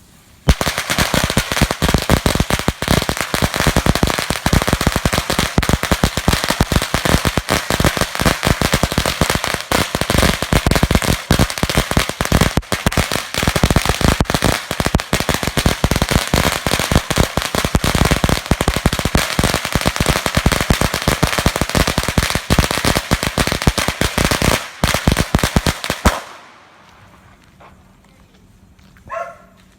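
A long string of firecrackers going off in a rapid, continuous run of bangs for about 25 seconds, then stopping abruptly.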